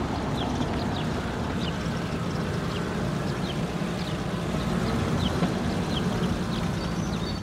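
Cartoon dump truck engine running steadily with a low hum, with faint short bird chirps above it.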